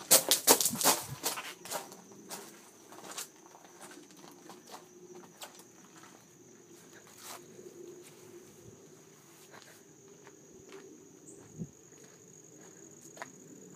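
Quick running footsteps on leaves and pavement with camera handling, loudest in the first two seconds. Then it goes quieter, with a few scattered sharp clicks over a steady high thin tone.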